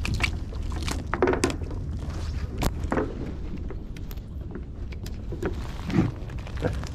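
A herring and its sinker rig are swung in over the railing and knock against the wooden pier deck, the fish flapping on the boards: scattered sharp clicks and knocks over a steady low rumble.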